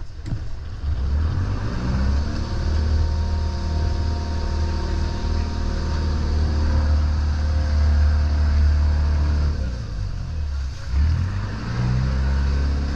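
Boat engine running under way, with water rushing along the hull. The engine note rises about two seconds in, dips around ten seconds, and picks up again near the end.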